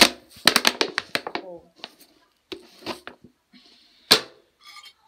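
A few words of speech, then light clicks and knocks of a plastic jar of sugar being picked up and handled, with one sharp click about four seconds in.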